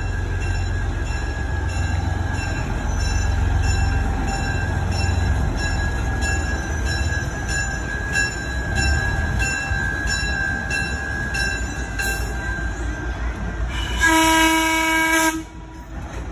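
Small diesel locomotive running slowly past with a low engine rumble and an even high ringing about twice a second. Near the end it gives one horn blast of about a second and a half, the loudest sound.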